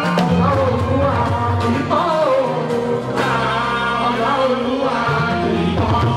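Live fuji music: a man singing into a microphone over a band with electric guitars, bass and percussion.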